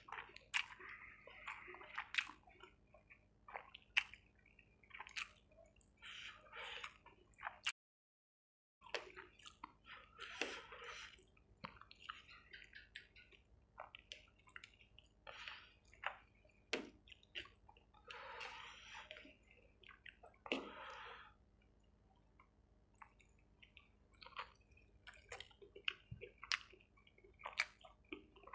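Close-miked wet chewing and lip-smacking of someone eating chicken curry with rice: many small sticky clicks and squishy mouth sounds. About eight seconds in the sound drops out completely for a second.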